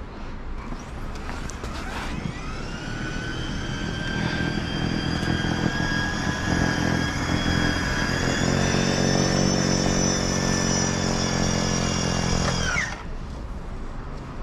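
An engine running with a high whine for about ten seconds, slowly getting louder, then cutting off suddenly near the end with a brief drop in pitch.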